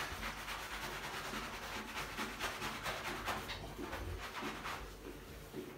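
Loofah scrubbing the wet, soapy legs of a Dogo Argentino in a shower: a quick run of rubbing strokes, somewhat quieter near the end.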